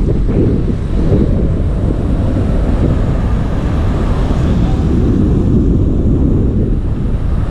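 Wind buffeting the microphone of a camera on a moving bicycle: a steady, loud, low rumble.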